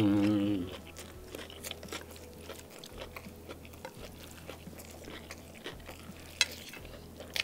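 Close-miked chewing of fried chicken and beef with rice, with wet mouth clicks and smacks and one sharp click about six seconds in. It opens with a short hummed 'mmm' that falls in pitch and stops within the first second.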